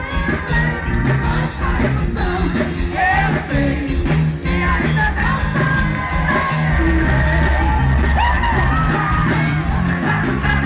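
Live Brazilian calypso band playing at full volume: a steady, bass-heavy dance beat with a woman's voice singing and calling out over it.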